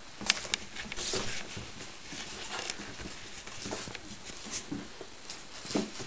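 Six-week-old Shichon puppies play-wrestling, with scattered scuffling knocks and a few brief puppy vocal sounds, the clearest near the end.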